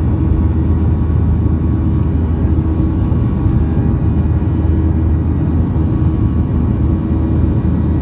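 Cabin noise of a Boeing 737-800 climbing after takeoff, heard from a window seat beside its CFM56-7B27E/F turbofan engine: a steady low rumble with a held hum over it.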